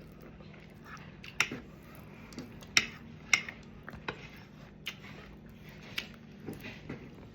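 Eating sounds at close range: irregular sharp clicks and smacks, roughly one a second, from a utensil on a dish and from chewing, over a faint steady hum.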